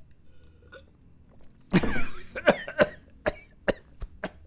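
A man coughing after a gulp of drink: one long harsh cough about two seconds in, then a string of short coughs, two or three a second.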